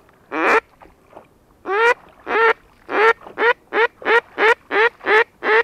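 Duck quacking: a single quack, then after a short pause a steady string of about ten loud quacks at roughly three a second, in the pattern of a mallard's quacking.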